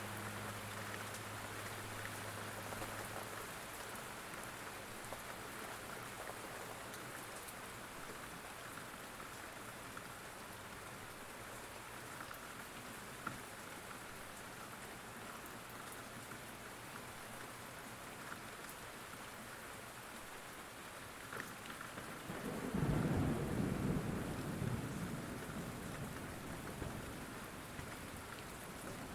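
Steady rain falling, an even hiss throughout. About three quarters of the way through, a low roll of thunder swells up and fades away over a few seconds.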